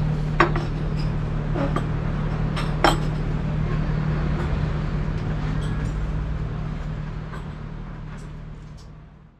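Clinks of tableware, three sharp ones in the first three seconds, over a steady low hum, all fading out near the end.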